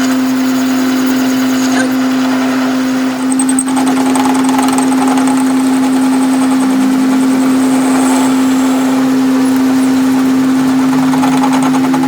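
Metal lathe running, a steady machine hum that holds one pitch, with a brief dip about three seconds in.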